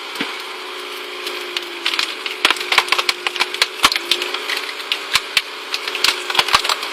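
Stickler screw-cone wood splitter boring into a large log: the wood cracks and splinters in a fast, irregular run of sharp snaps from about two seconds in, over the machine's steady drone.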